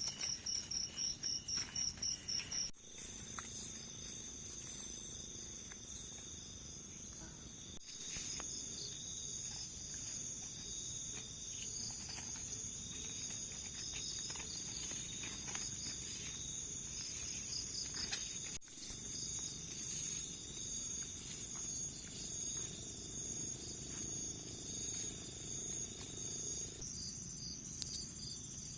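Chorus of crickets and other insects: several steady high trills overlapping, with a fast, even pulsing chirp for the first few seconds. The chorus shifts abruptly a few times.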